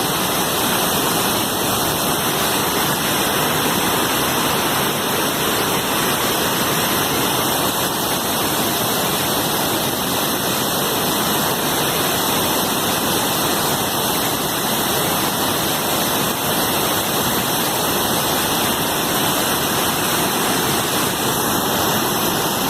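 Waterfall rushing, a loud, steady, even roar of falling water.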